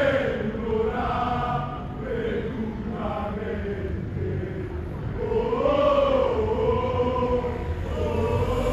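A marching crowd of football ultras chanting together, many voices singing one melodic chant in unison. The chant gets louder about halfway through.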